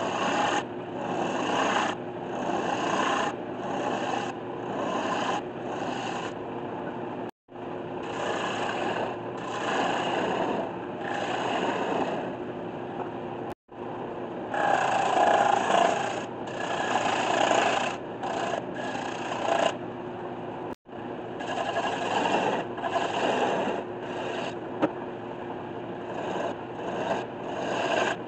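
Bowl gouge cutting into spinning spalted maple on a 1981 Delta lathe: a rasping shaving sound in repeated passes of about a second each, over the lathe's steady hum. The sound drops out abruptly three times.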